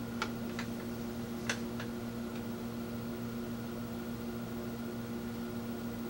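A few light clicks in the first two seconds as banana-plug test leads are pushed into the jacks of a Sencore DVM56 bench multimeter, over a steady low electrical hum.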